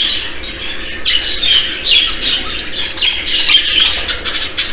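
A flock of show budgerigars chattering: a steady stream of short, overlapping calls and squawks.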